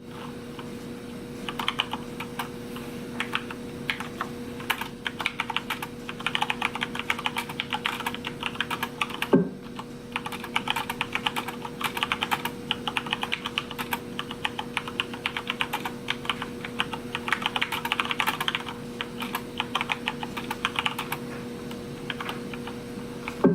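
Typing on a Corsair K70 Lux RGB mechanical keyboard with Cherry MX Brown switches: rapid runs of key clicks in bursts with short pauses. A single louder thump comes about nine seconds in.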